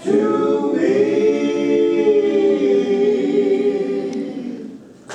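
Male a cappella doo-wop group holding one long closing chord in close harmony, which fades out near the end.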